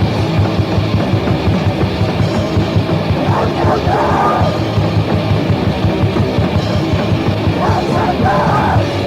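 Crust punk demo recording: a full band of distorted guitars, bass and fast drums playing, with vocals coming in twice.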